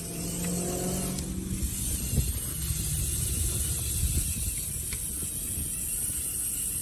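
LEGO SPIKE Prime motor spinning a wheel on an axle down into soil and wood-chip mulch, digging a hole: a pitched motor hum for the first second or so, then a steady grinding churn of the wheel in the dirt.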